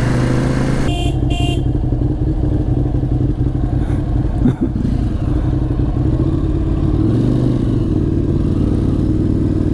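Ducati Monster 821's L-twin engine running steadily while the bike rides along. Two short high beeps sound about a second in.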